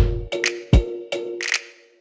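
Background music with a percussive beat: deep drum hits and sharp clicks over held tones.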